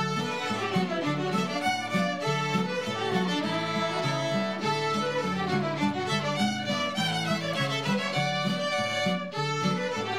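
Fiddles playing a lively fiddle tune together, quick melody notes over a steady lower accompaniment.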